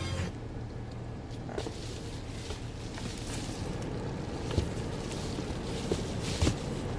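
Car engine running, heard from inside the cabin as a steady low rumble. A few sharp clicks or knocks come in the second half.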